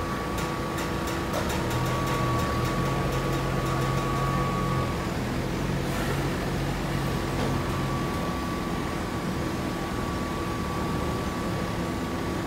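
Forklift engine running close by, under a steady machine hum with a high whine. A row of quick ticks sounds in the first second or so, and a low engine tone swells for a few seconds early on.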